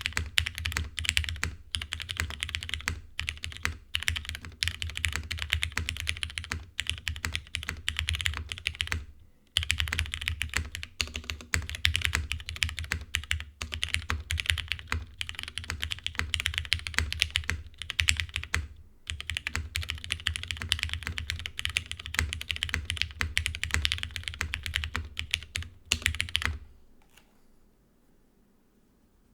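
Fast typing on a mechanical keyboard: a Kalam clone of the TGR Jane v2 with retooled Cherry MX Black linear switches (lubed, 50 g long springs), a half FR4 plate and GMK keycaps. The typing pauses briefly twice and stops a few seconds before the end.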